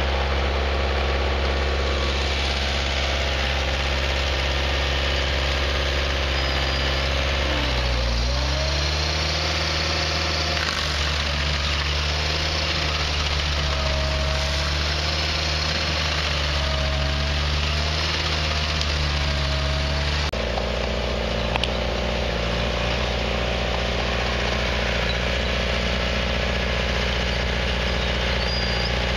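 Bandit tracked stump grinder's engine running hard while its cutter wheel grinds a stump into chips. The engine pitch dips and wavers as the wheel takes load, and the sound changes abruptly about two-thirds of the way through.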